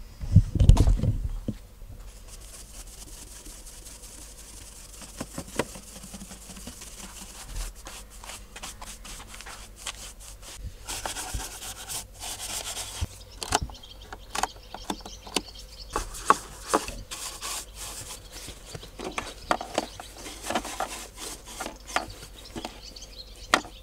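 A soft shaving brush rubbed and flicked over the plastic slats and trim of a car's rear air vent: a dry brushing full of small clicks, dusting it out before vacuuming. About a second in there is a single heavy thump.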